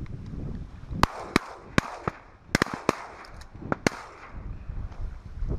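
Shotguns firing at teal: a rapid volley of about eight shots from several guns, starting about a second in and spread over about three seconds.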